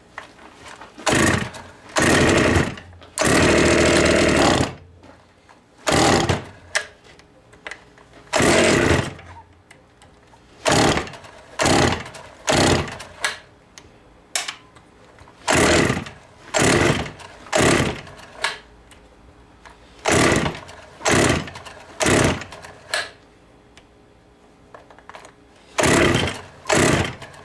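Vintage Pioneer two-stroke chainsaw being pull-started over and over, the engine cranking in short bursts of about a second each in groups of two to four pulls, without catching and running; the saw is not picking up fuel from the tank.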